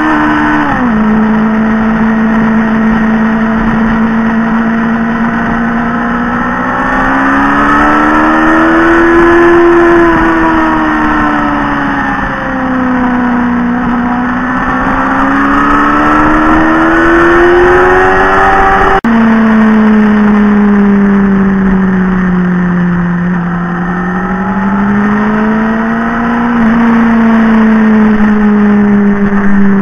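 Motorcycle engine heard from the bike while riding, its pitch rising and falling smoothly with the throttle through the bends, with a sharp drop in pitch about a second in. Wind rushes over it, and about two-thirds of the way through the sound cuts abruptly to another stretch of riding.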